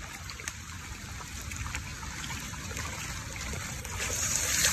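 Steady rain falling on wet ground, an even hiss of drops with a few faint ticks, growing a little louder near the end.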